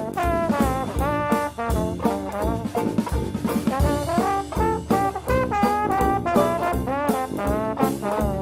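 Upbeat jazz background music led by brass, with a drum beat.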